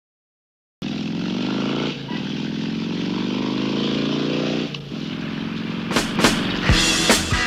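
Motorcycle engine accelerating through the gears: it starts abruptly just under a second in, the revs climb, drop about two seconds in, climb again for nearly three seconds and drop once more. Rock music with heavy drum hits comes in about six seconds in.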